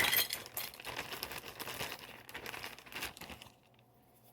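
Crinkling and rustling of plastic packaging being handled and torn open. It stops about three and a half seconds in.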